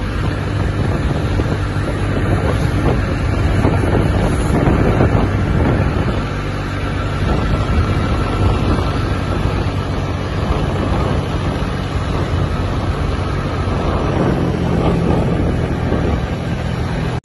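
A vehicle's engine running steadily while driving along a road, with wind buffeting the microphone.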